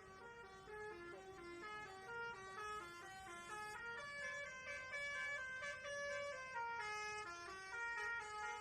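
Bus Basuri telolet horn playing a melody: a quick run of clear horn notes stepping up and down, at times two notes sounding together.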